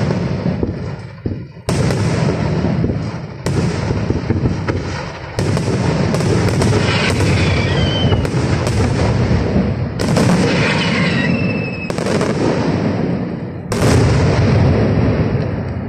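Aerial firework shells bursting in quick succession: sharp booms every one to two seconds over a continuous rumble of overlapping explosions.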